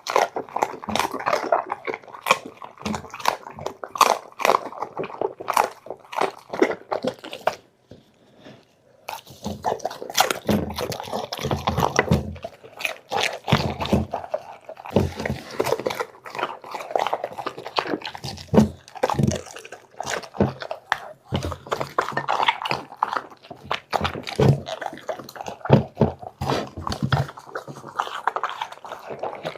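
A dog chewing and crunching food up close: a dense run of quick, irregular crunches and wet chews, with a pause of about a second some eight seconds in.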